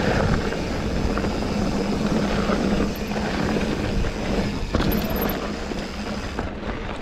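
Mountain bike being ridden along a trail: tyres rolling and wind rushing over the camera's microphone make a steady rush, with a low hum underneath and a few short knocks from the bike. The rush eases near the end.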